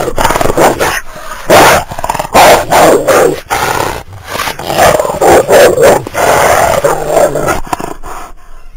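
An aggressive canine snarling and growling in loud, rapid, irregular bursts.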